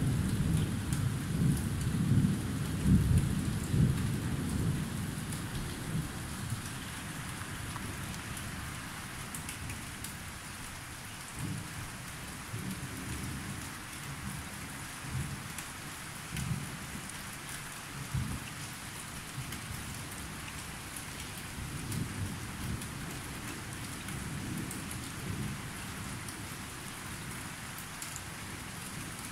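Thunderstorm: a rolling rumble of thunder fades away over the first few seconds, over steady rain hissing on surfaces. Later there are a few brief, softer low rumbles under the rain.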